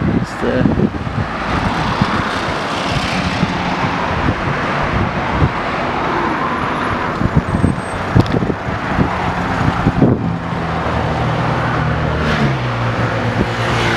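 Road traffic passing, a swelling wash of tyre and engine noise, with a vehicle engine's steady hum in the last few seconds.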